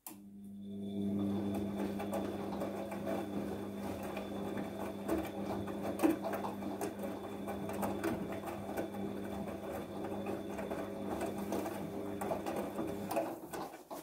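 Bosch front-loading washing machine's drum turning during its wash programme: the motor starts abruptly and hums steadily while wet laundry tumbles and clicks inside the drum. It stops just before fourteen seconds, as the drum pauses before reversing.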